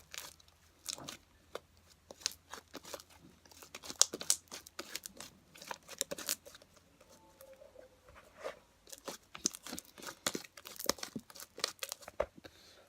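Glossy glue slime being squeezed, stretched and pulled apart by hand: irregular sticky clicks, pops and tearing sounds.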